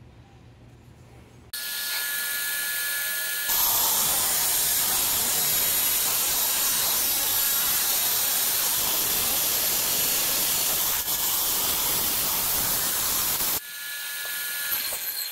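Wet saw switched on and running with a steady whine, then cutting into an agate with loud, even grinding for about ten seconds. Near the end the blade runs free again briefly before the saw is switched off.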